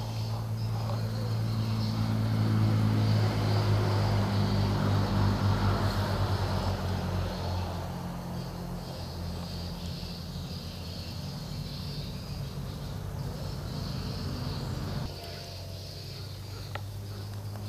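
A small engine running steadily, swelling a couple of seconds in, then easing, and dropping in level near the end. Insects buzz high and steady throughout.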